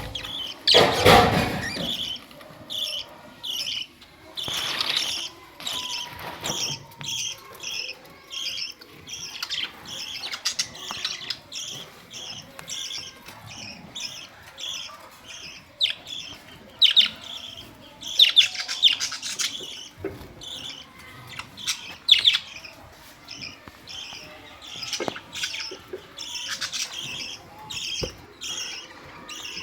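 Budgerigars chirping and chattering: a steady run of short high chirps about twice a second, broken by a few louder, sharper squawks.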